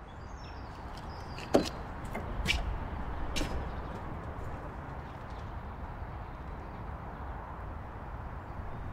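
Three clunks, like a door or gate knocking, over a steady low outdoor rumble. The loudest clunk comes about a second and a half in, and the others follow about a second apart.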